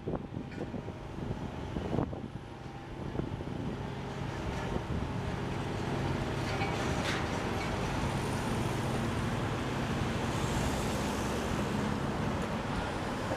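Steady drone of engines running, with road traffic noise that grows louder and steadier about five seconds in; a single knock about two seconds in.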